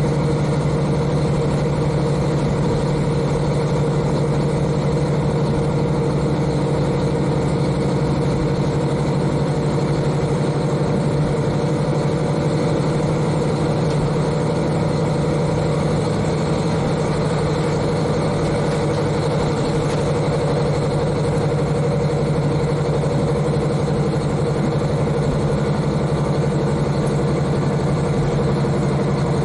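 KiHa 40 diesel railcar's N-DMF13HZI six-cylinder diesel engine running at a steady, unchanging pitch, heard from inside the car directly above the engine.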